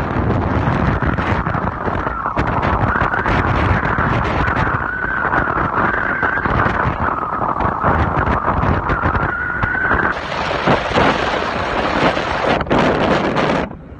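Wind buffeting a phone microphone on a moving motorbike, a steady rushing roar with the motorbike's running noise under it. A thin wavering whine runs through the middle, and the rush turns hissier near the end.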